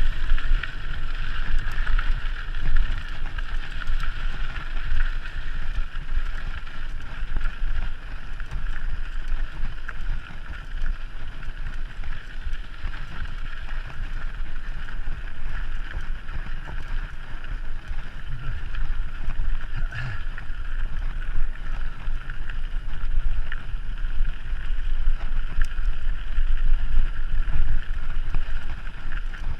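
Wind buffeting the microphone of a camera on a moving mountain bike, a steady rumble over a constant hiss.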